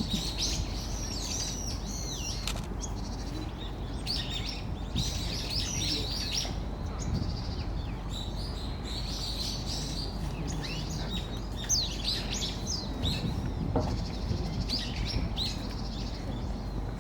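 Many small birds chirping, with quick, high, squeaky calls coming thick and fast throughout, over a steady low background hum.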